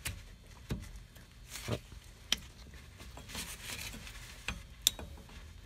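Locking pliers clicking and scraping against the steel shoe hardware of a rear drum brake as they are levered to pry a brake shoe off its spring: a handful of sharp metal clicks, with a couple of soft, effortful breaths.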